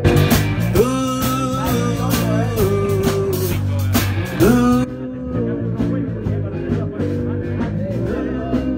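Live rock band playing, with drum kit, bass and electric guitar, and a lead line of long notes that slide and bend.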